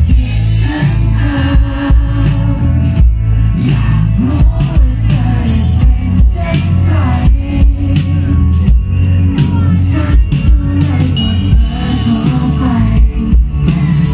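Live pop-rock band playing loudly through a PA: a steady drum beat under electric guitars, bass and synth, with a woman singing lead.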